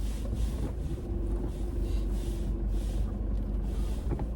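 A Toyota Fortuner 4x4 crawling slowly over a rough, rocky track: a steady low engine and tyre rumble, with a held engine note for a couple of seconds early on.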